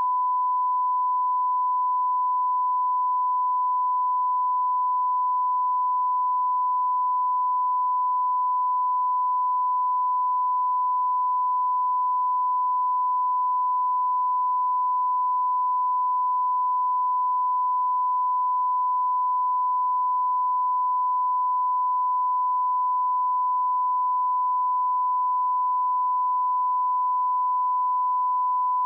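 Television test card line-up tone: one steady, unbroken pure tone at a constant level, sent with the colour bars.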